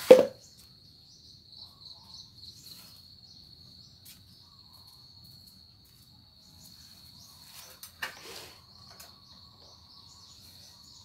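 A cricket trilling steadily at a high pitch. There is a sharp knock right at the start and a brief rustle about eight seconds in.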